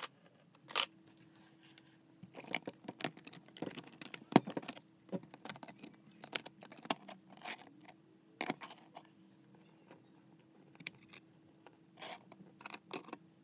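Plastic LEGO bricks being handled and fitted together: irregular sharp clicks, taps and scraping, with louder snaps about four and a half and eight and a half seconds in.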